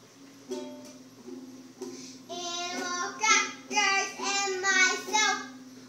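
A child strums a few notes on a guitar, then starts singing over it about two seconds in, in short phrases.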